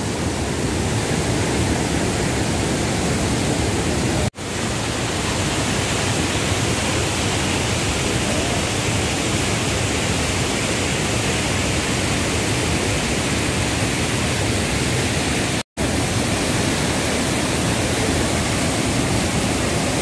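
Large waterfall and the white water below it rushing in a steady, loud, even wash of noise. The sound cuts out for an instant twice, about four seconds in and again near sixteen seconds.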